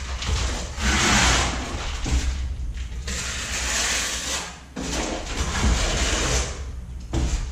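Steel trowel scraping and spreading tile mortar in a series of strokes about a second long, over a steady low rumble.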